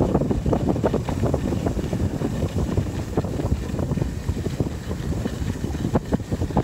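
Wind buffeting a phone's microphone: a loud, fluttering rumble with no let-up.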